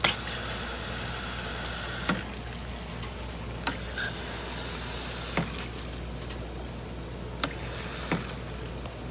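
Self-serve soda fountain pouring a soft drink into a large paper cup in two spells of a few seconds each. Each pour ends with a sharp click from a dispenser lever, and there are several more clicks, all over a steady low hum.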